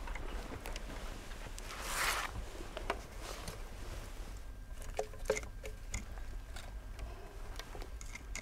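Faint scuffing, rustling and light knocks of a deminer moving on loose soil and setting landmines down in a demolition pit, with a brief louder rustle about two seconds in.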